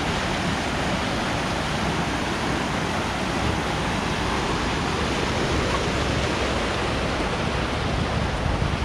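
River water rushing steadily over a shallow rapid, a constant even roar of white water.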